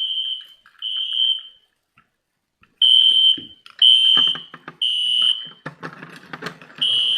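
Fire alarm sounder beeping a high, steady tone in the temporal-three evacuation pattern: three short beeps, a pause, three more beeps, a pause, then the pattern starting again near the end. Clattering handling noises run through the second half.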